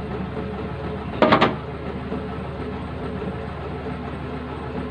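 Hitachi Zaxis 135 excavator's diesel engine idling steadily, with one brief louder burst about a second in.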